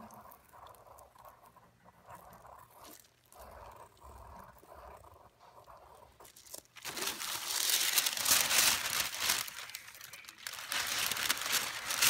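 Pencil scratching in short strokes as it traces over thin paper laid on transfer paper and canvas. About seven seconds in, a much louder crinkling rustle of the sheets of paper being handled and lifted off the canvas, easing briefly and then starting again near the end.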